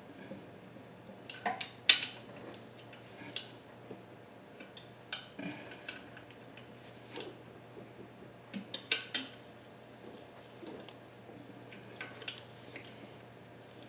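Hand tools clinking and tapping against metal while working on engine bolts, in scattered irregular clinks. The loudest come about two seconds in and in a short cluster around nine seconds.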